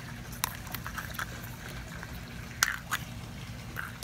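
A few light clicks and taps from plastic Easter eggs being handled, over a low steady hum. The two sharpest clicks come close together nearly three seconds in.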